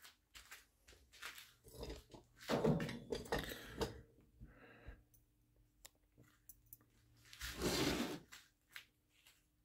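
Scattered knocks, clicks and scraping of hand tools and wood on a wooden workbench as a sharpening stone in its wooden holder is moved into place, with the loudest scrape about eight seconds in.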